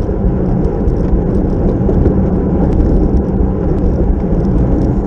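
Steady wind rush over a racing bicycle's handlebar-mounted camera microphone at about 41 km/h, with tyre and road noise underneath.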